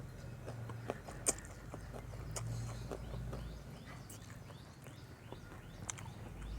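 Close-up eating sounds: chewing with scattered small wet clicks and smacks of the mouth, irregular and a few per second.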